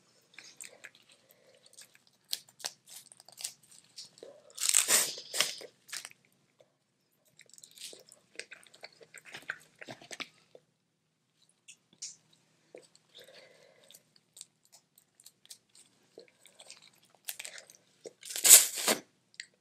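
Boiled crawfish being peeled and eaten close to the microphone: shells cracking and crunching amid wet chewing and small clicks, with two louder crunches, one about five seconds in and one near the end.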